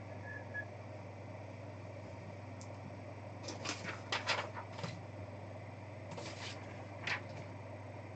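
Hands handling a trading-card box and its packaging: a handful of short scrapes and rustles about three to five seconds in and twice more near the end, over a steady low electrical hum.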